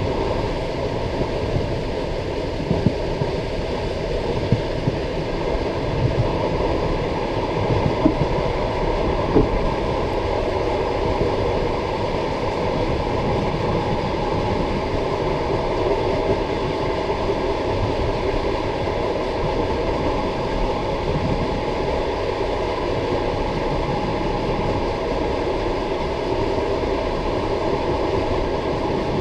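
Passenger train carriage rolling along with a steady rumble of wheels on the rails. Several sharp knocks come from the wheels over rail joints in the first ten seconds, then the rumble runs smoothly.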